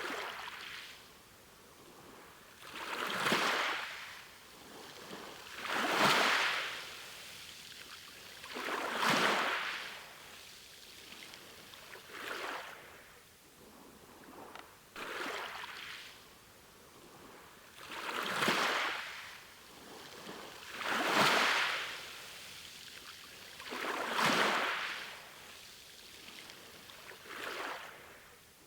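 Sea waves breaking and washing in, one surge about every three seconds, each swelling up and falling away.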